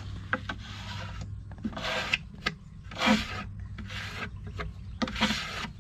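Sandpaper rubbed by hand across a wooden drawer in several strokes about a second apart, with lighter scrapes between them.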